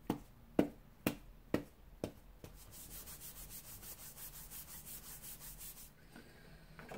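An anti-static embossing buddy pouch patted on card stock about five times, then rubbed rapidly back and forth across the paper for a few seconds, prepping it for heat embossing.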